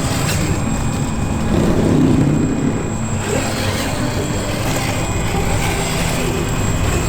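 Electric motor and freshly rebuilt geared transmission of an RC scale crawler whining as it drives on a rock course, swelling louder about two seconds in.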